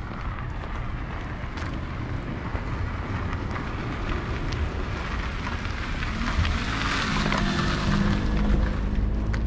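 Wind rumbling on the microphone. From about six seconds in, an engine's hum comes in and grows louder as it draws near, with a rising hiss.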